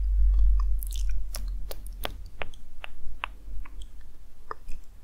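Close-miked ASMR mouth sounds: about a dozen soft, irregular wet clicks and lip smacks, over a low steady hum.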